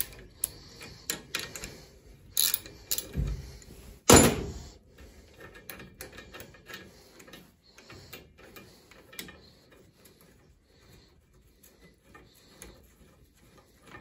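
Metal clicks and ticks of a wrench working the steel flange bolts on a boiler circulator pump, with one loud metallic knock about four seconds in, then lighter clicks and rattles. The bolts are being loosened to take out the failed circulator.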